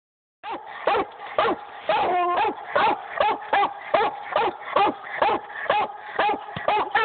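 Hound barking treed with a steady run of short chop barks, about two to three a second, with a longer yelping cry around two seconds in.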